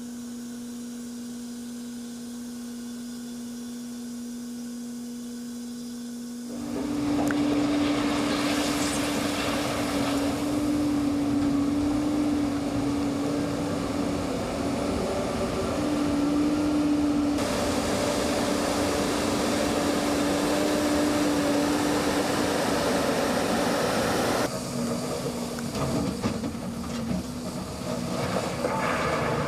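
Heavy machinery running with a steady engine hum over a noisy rumble. The sound changes abruptly about a fifth of the way in, again past the middle, and near the end, as the shots change.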